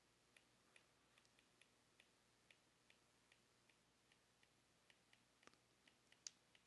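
Near silence with faint clicks of a stylus tapping on a tablet's glass screen while handwriting, about two to three a second, one a little louder near the end.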